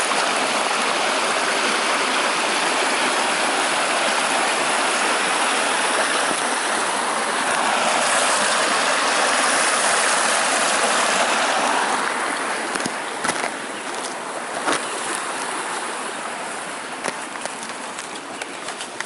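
Snowmelt creek rushing over its bed. The rushing fades from about twelve seconds in, leaving a few light clicks near the end.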